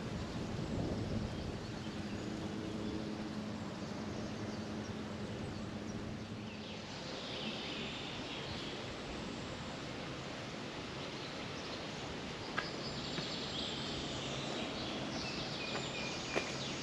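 Outdoor countryside ambience with a steady hiss. From about seven seconds in, birds chirp in high bursts, and a few sharp clicks come near the end.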